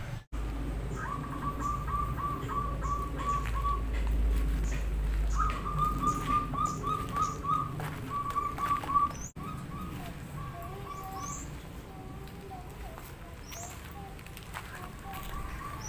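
Zebra doves (perkutut) cooing in rapid runs of short, quick-repeating notes, several bursts in a row, with faint high chirps from small birds.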